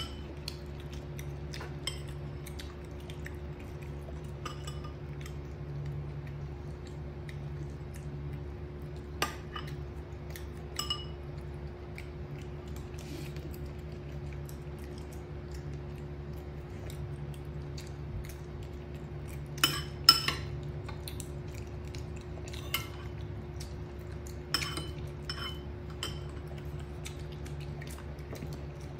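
Scattered clinks and taps of tableware, a ceramic rice bowl and plate being handled on the table, each a short sharp click with a brief ring. The loudest pair comes about two-thirds of the way through, over a steady low hum.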